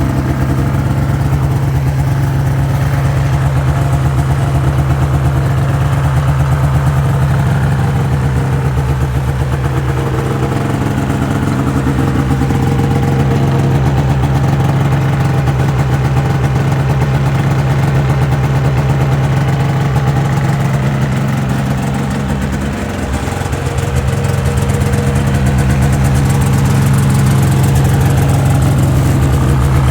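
Two-stroke twin engine of a 2005 Ski-Doo MX-Z Renegade 600 H.O. SDI snowmobile running steadily at its raised warm-up idle shortly after a cold start. Its revs sag briefly about two-thirds of the way through and then pick back up.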